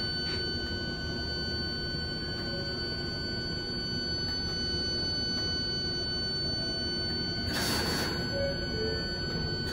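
Inside an R142-family subway car running through a tunnel: a steady rumble under a constant high propulsion whine, with a brief hiss a little after seven seconds in.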